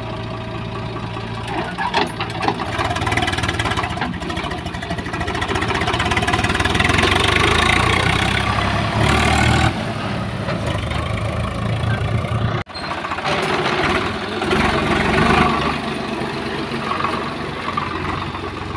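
Swaraj 735FE tractor's three-cylinder diesel engine running under load as it pulls a loaded soil trolley away. The engine gets louder for a few seconds in the middle, and there is a sudden break about two-thirds of the way through.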